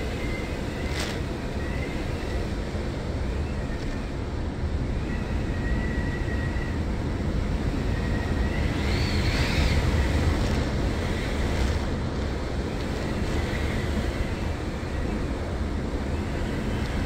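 Hurricane-force wind and driving rain, with the wind buffeting the microphone. A thin whistle rises and falls with the gusts, swelling into the loudest gust about nine to ten seconds in.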